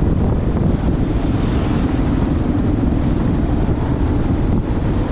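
Steady wind noise buffeting the microphone of a helmet-mounted camera on a moving vehicle, with low road rumble underneath.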